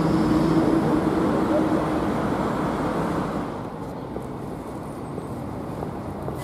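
Flexity low-floor tram passing close, rolling along the street with a steady motor hum, then fading away. About three seconds in, the sound drops to quieter city street traffic noise.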